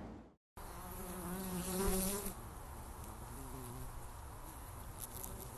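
Honeybees buzzing around a hive, with one bee droning loudly close by for about a second near the start, then a steadier, fainter buzz.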